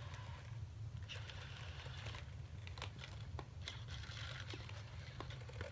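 Sony Aibo ERS-7 robot dog moving: scattered plastic clicks and taps with short scratchy rustles from its joints and paws, over a steady low hum.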